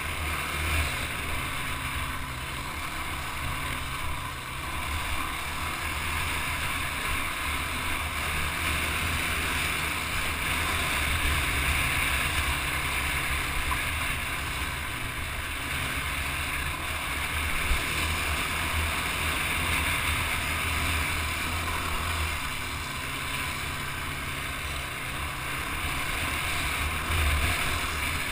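Sport quad (ATV) engine running as it rides over a dirt track, heard with steady wind rushing over the microphone; the sound stays much the same throughout with small swells.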